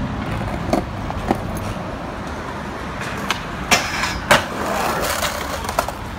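Skateboard wheels rolling on concrete with a steady rumble and a few clicks, then two sharp cracks about half a second apart near the middle, the pop and landing of a trick down a stair set, followed by the board rolling on.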